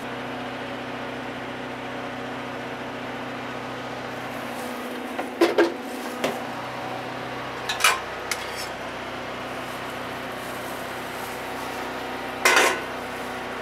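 Kitchen clatter of utensils and pans at a griddle: a few short knocks about five seconds in and again around eight seconds, and a louder clatter near the end. Under them runs a steady machine hum.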